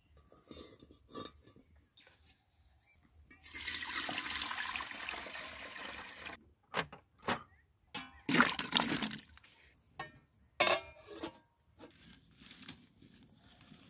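Water poured in a stream into an aluminium cooking pot, a steady splashing rush for about three seconds, followed by several short, sharp knocks and clatters.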